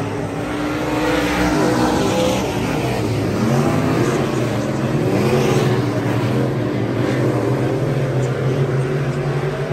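A field of dirt-track race cars running at speed around the oval, several engines at once, their pitch rising and falling as the cars pass through the turns and down the straight.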